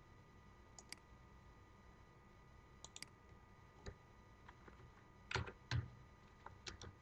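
Faint, scattered clicks of a computer mouse and keyboard keys, with two louder clicks about five and a half seconds in.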